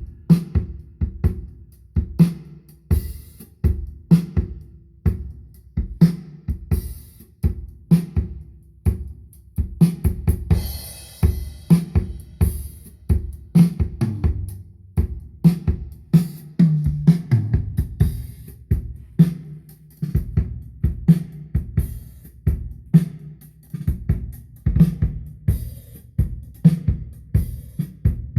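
Drum-heavy music with a steady beat of bass drum, snare, hi-hat and cymbals, played back through an Onkyo Integra A-8250 stereo amplifier in a sound test.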